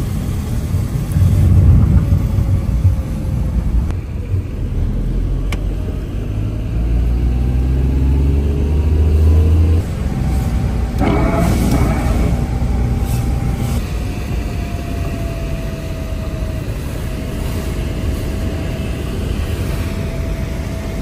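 Car cabin noise while driving on a wet road: engine and tyre rumble, with the engine note rising as the car accelerates and dropping away about ten seconds in.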